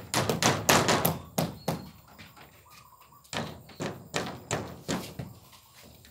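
Hammer blows nailing plywood panels to a wooden frame: a quick cluster of sharp knocks in the first second, then a steady run of blows about three a second from about three seconds in.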